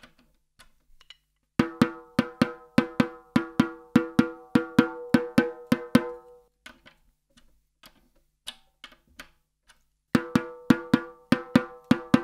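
Drumstick tapping a snare drum's Kevlar batter head near each tension lug, about four quick ringing taps a second, to compare the pitch lug by lug while tuning it high, around a B. A run of taps, a pause, then a second run near the end.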